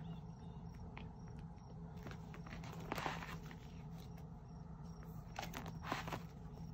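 Faint crinkling and rustling of plastic photocard binder sleeves as pages are handled and turned, with soft rustles about three seconds in and again near the end, over a low steady hum.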